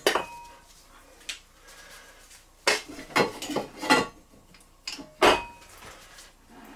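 A series of light metallic clinks and knocks, about eight in all and some with a short ring, as the brass fittings of a small stationary steam engine and a small metal tool are handled.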